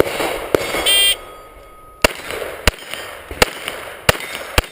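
An electronic shot timer's start beep about a second in, then five pistol shots fired at steel plates, one string of a Steel Challenge stage, spaced roughly two-thirds of a second apart.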